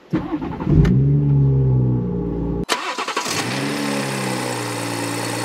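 BMW M140i's 3.0-litre turbocharged straight-six starting at the push of the start button, flaring up in revs and settling into a fast idle. After a break about two and a half seconds in, it is heard again with the revs falling back to a steady idle.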